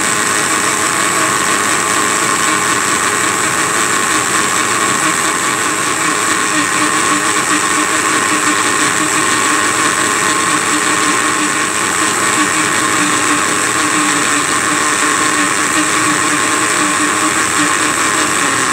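Electric blender running steadily at one speed, blending honey, garlic, aloe vera and turmeric into a cough syrup.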